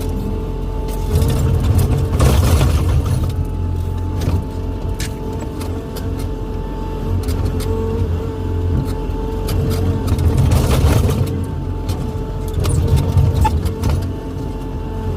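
Excavator engine running steadily with a constant hydraulic whine, growing louder twice as the machine works under load.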